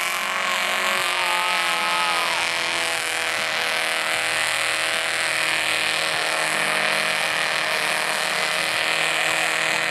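Pickup truck engine held at high, steady revs while the truck churns through deep mud in a mud-bog pit, its wheels spinning.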